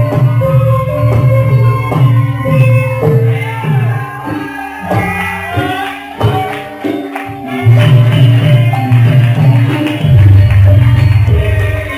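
Javanese gamelan ensemble playing: bonang kettle gongs struck with padded sticks ring out pitched metallic notes over a steady pulse of heavy kendang drum beats. The low drum drops out for a few seconds in the middle and comes back in strongly about eight seconds in.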